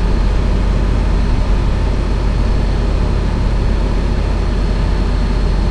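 Tour coach's engine heard from inside the passenger cabin: a steady low rumble, with a faint high whine above it.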